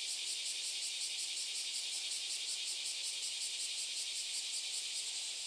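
Cicadas singing in a steady chorus: a high hiss that pulses several times a second.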